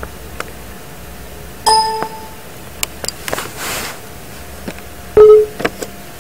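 Two short ringing dings, the second the louder, with a few sharp clicks and a brief hiss between them, over a steady low hum.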